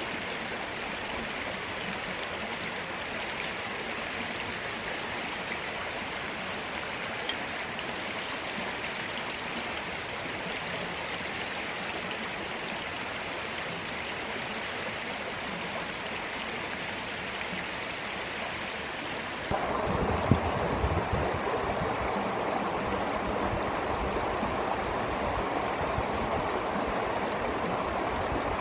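Creek water flowing steadily over stones. About two-thirds of the way through it becomes louder and deeper, with one brief knock soon after.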